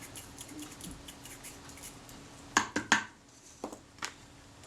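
Faint rapid ticking of a camera shutter's retard gear train being run by hand to work graphite powder in, with a few sharper small metal clicks about two and a half to three seconds in.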